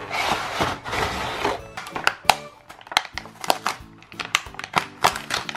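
Background music with crinkling plastic packaging at first, then irregular sharp clicks and taps of hard plastic toy ice cream pieces being handled in their plastic tray.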